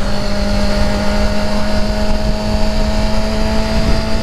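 Motorcycle engine running at a steady cruise, its pitch holding level, with wind rumble on the helmet microphone.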